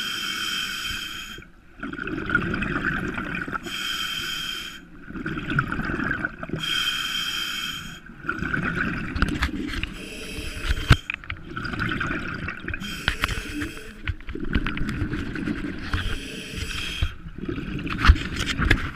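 Scuba diver breathing through a regulator underwater: a hissing inhale alternating with a bubbly exhale, one breath about every three seconds, growing less regular later on with a few sharp knocks.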